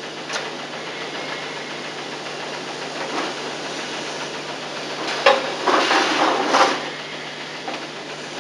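Steady tape hiss with a low hum, and short rustling, scraping noises about five to seven seconds in, from the edge trim being peeled back off a BMW E31 seat backrest's fabric cover.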